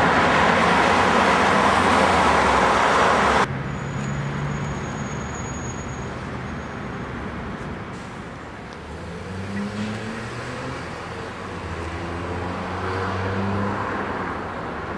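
Inside a moving coach: a loud rushing road and wind noise cuts off abruptly a few seconds in. The engine then runs on more quietly with road noise, its low hum swelling twice as it pulls.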